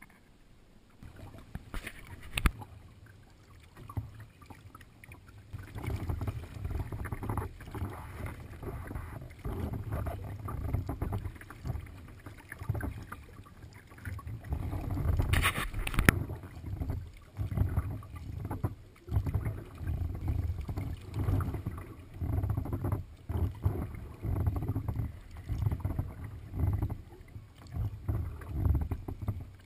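Water sloshing and slapping against a kayak hull as it is paddled, picked up through a camera mounted on the hull: a low rough rumble that pulses about once a second, faint at first and louder after a few seconds. A sharp knock comes about two seconds in and another near the middle.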